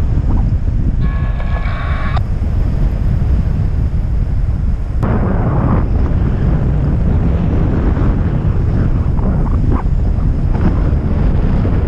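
Airflow buffeting the camera's microphone in flight under a paraglider, a loud, steady low rumble. About a second in, a short electronic tone sounds for about a second over the wind.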